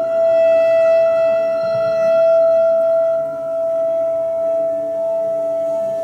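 A cymbal bowed along its edge, ringing with one long sustained metallic tone, with a clarinet playing alongside.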